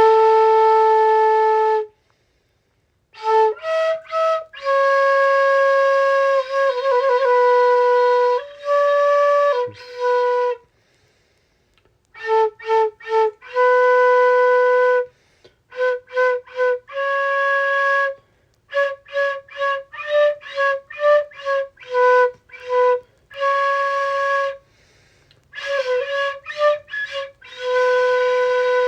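A solo flute playing a slow melody in phrases of held and short notes, with short pauses between them and a quick trill about six seconds in.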